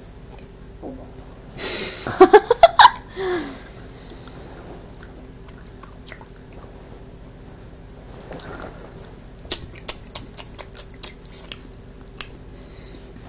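Mouth sounds of sour hard candy being sucked and chewed, with a run of small sharp clicks in the last few seconds. About two seconds in there is a brief loud wordless vocal outburst.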